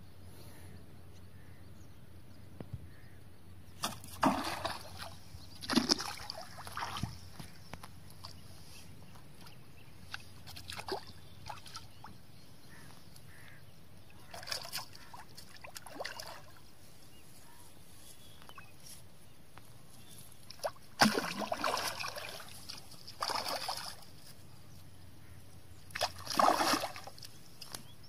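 A hooked fish splashing and sloshing at the water's surface in irregular bursts as it is played on a rod, the biggest splashes about three-quarters of the way through and near the end.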